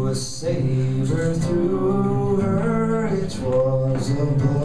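Acoustic guitar strumming chords while a flute plays the melody, live and unamplified-sounding, in an instrumental passage.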